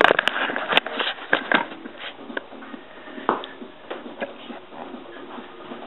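Irregular clicks and knocks of hand tools and metal parts being handled on a car door, busiest in the first second or so and sparser after.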